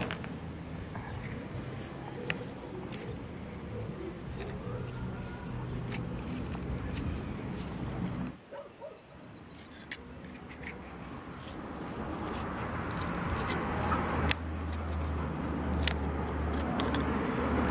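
Cricket chirping in a steady, high, finely pulsed trill, with scattered small clicks and a low hum that comes up strongly over the last few seconds.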